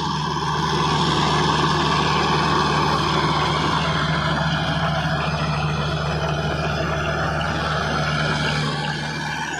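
Mahindra 475 DI tractor's four-cylinder diesel engine running steadily under load at about 2000 rpm in first low gear, driving a 7-foot rotavator whose blades churn through hard, dry soil. It drops a little in loudness near the end.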